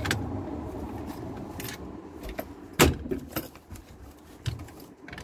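A metal door lock being fitted and tried in the recess of an oak door: a few sharp clicks and knocks of metal against wood, the loudest a little under three seconds in.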